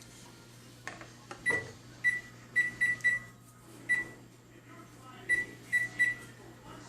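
Electronic keypad beeping as its buttons are pressed to set a timer: nine short beeps at one pitch, in irregular groups.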